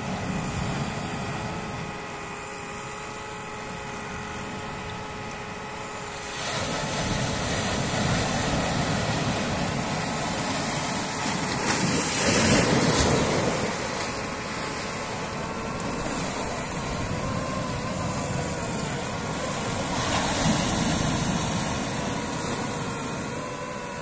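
DJI FPV drone's motors and propellers running with a steady multi-toned whine, under a rush of wind noise on the microphone. The wind noise swells from about a quarter of the way in and is loudest about halfway through as the drone speeds along.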